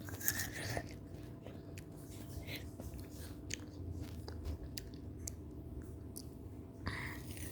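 Close-up chewing and biting of fruit, with many small, irregular crunching clicks.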